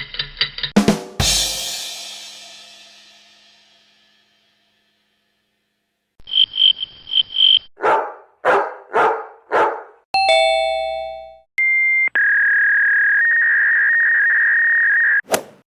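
A run of short stock sound effects from a video-editing app, played one after another: a crash that rings out and fades over about three seconds, a pause, a quick series of chirping tones, four short bark-like calls, a ringing chime, then a long steady electronic tone ending in a quick swish.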